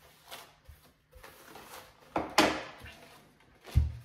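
Handling sounds on a small wooden bedside cabinet: a few light knocks, a louder scrape a little past halfway, and a low thump near the end.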